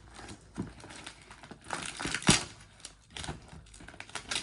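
Gift packaging being crinkled and torn open by hand: irregular rustling and crackling, with one sharp rip-like burst about two seconds in.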